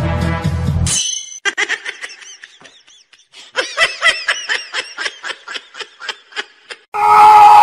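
High-pitched giggling laughter in many quick short bursts, starting about a second in as background music cuts off. A much louder sound cuts in near the end.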